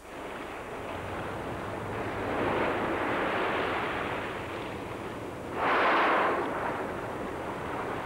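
Sea waves and wind: a rushing wash of water against a ship at sea that comes in abruptly, swells, and rises to a louder surge about six seconds in.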